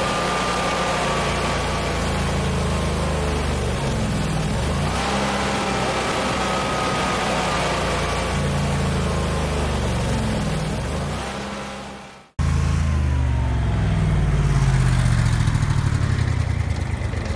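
A 22 kW Generac standby generator's engine running under load, its pitch sagging and rising again and again as the speed wavers: the underspeed condition that trips the generator's alarm. The sound cuts out abruptly for an instant about twelve seconds in and then resumes.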